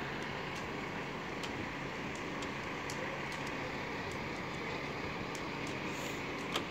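Steady, even background noise with a few faint clicks.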